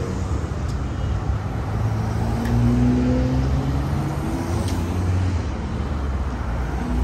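Cars driving past on the street, one accelerating with a rising engine note about two to four seconds in, over a steady low traffic rumble.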